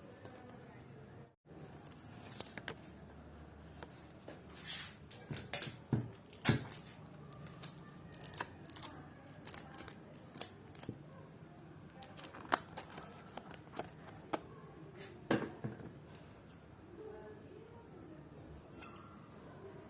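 Scissors snipping in a run of irregular short cuts, a few of them sharper and louder than the rest.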